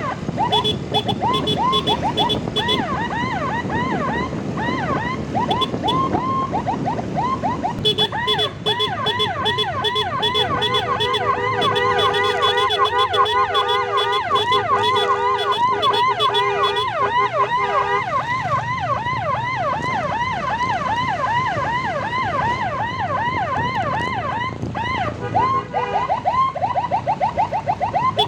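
Electronic emergency siren wailing in a fast yelp, sweeping up and down about four to five times a second and speeding up near the end. A steady, held multi-note tone sounds over it for several seconds in the middle.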